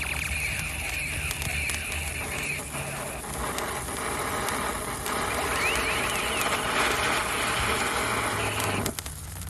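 Reloadable cold spark fountain hissing and crackling as it burns in a toy fireworks pistol, cutting off abruptly near the end as the fountain burns out. The pistol's electronic sound effects, sweeping up and down in pitch, play over it around the middle.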